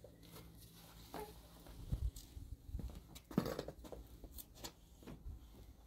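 Quiet scattered shuffles and light knocks of footsteps and handling, with a short whimper from a toddler about a second in.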